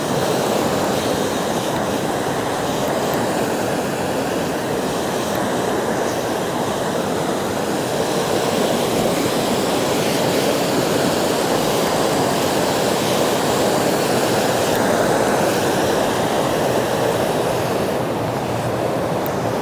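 Fast-flowing mountain beck rushing over rocks beside a stone bridge: a loud, steady rush of water.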